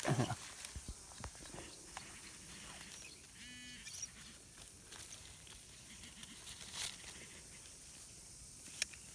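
Faint, scattered knocks and rustles of soil being handled and dug through while searching a clump for a metal detector target, with one short pitched beep about three and a half seconds in.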